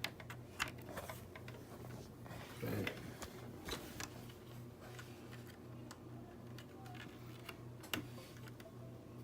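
Scattered sharp clicks and taps from a mechanical keyboard being handled, with a duller knock about three seconds in, over a faint steady low hum.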